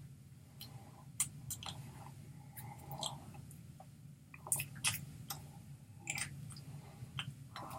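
Faint irregular clicks and soft smacks from a person signing: hands meeting and mouth noises, over a low steady hum.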